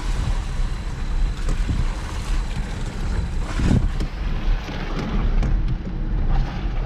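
Off-road vehicle driving over rough ground: a steady low engine and drivetrain rumble with wind buffeting the microphone, and a louder thump about three and a half seconds in.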